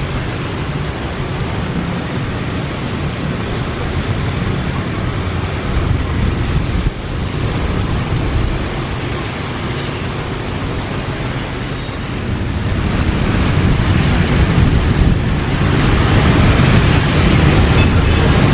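Steady rushing noise of an Airbus A321's jet engines at taxi power, mixed with rain, growing louder about two-thirds of the way through.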